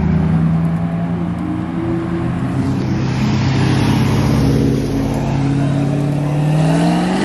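Cars driving slowly past, a Bugatti Chiron and then a black fifth-generation Chevrolet Camaro, with a steady deep engine note. Near the end the pitch starts to rise as the Camaro's V8 revs up.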